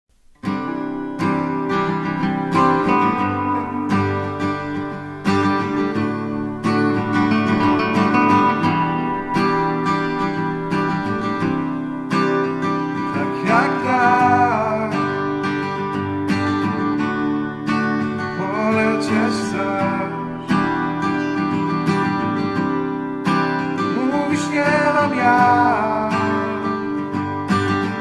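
Acoustic guitar intro of a song, chords played in a steady pattern. A wavering, sliding melody line rises above it three times, about halfway through and twice more toward the end.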